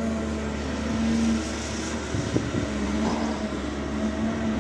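Caterpillar 320 Next Gen excavator's diesel engine humming steadily while it digs, with a few short knocks partway through.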